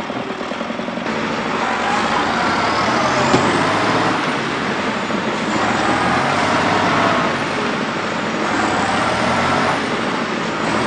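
Diesel engines of a crawler tractor and a wheeled tractor running hard under heavy load, the two machines straining together in deep mud; black exhaust smoke marks the load. Their pitch rises and falls repeatedly as the engines are revved.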